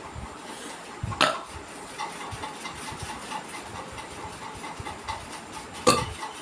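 A woman burping after drinking water: two short, abrupt burps, one about a second in and one near the end.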